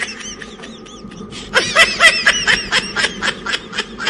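Laughter: a long run of rapid ha-ha pulses begins about a second and a half in and fades toward the end.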